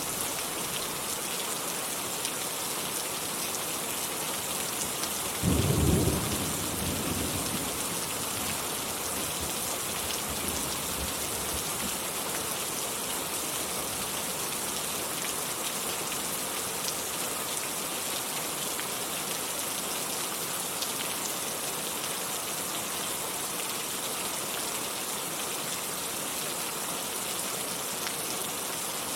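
Steady rain falling, with a short low clap of thunder about five and a half seconds in that fades over a second or two.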